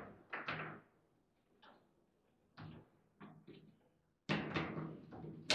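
Foosball ball being struck by the players' plastic figures on a table football table: scattered single sharp clacks, then a quick, louder flurry of hits about four seconds in.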